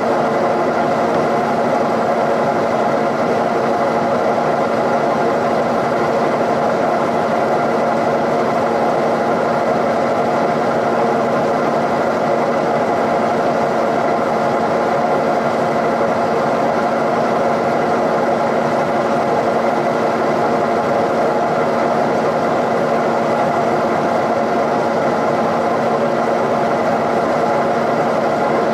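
Milling machine running steadily with a boring bar in its spindle, set up for boring the port bowls of a Cummins 5.9 cylinder head: an even mechanical hum with several steady tones that does not change.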